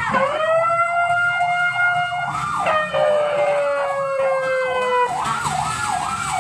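Ambulance siren sounding: a fast warbling wail, about four warbles a second, over a steady two-tone that switches between a low and a high pitch every two to three seconds.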